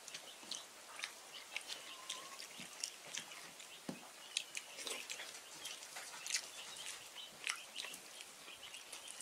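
Two people eating rice and curry with their fingers off banana leaves. Many small, irregular wet clicks and smacks come from fingers mixing the rice and from chewing.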